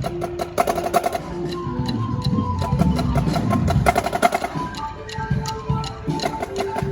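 Music with a clicky percussion beat under a melody of held notes.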